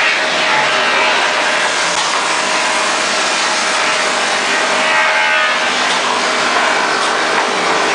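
Steady, loud machinery noise from workshop equipment, running without a break and with no distinct nailer shots.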